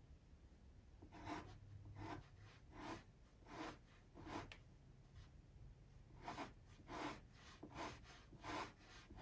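Chunky soft pastel stick scratching on pastel paper in short, faint strokes, roughly one every three-quarters of a second with a brief pause midway, as the dark rim of an eye is worked in.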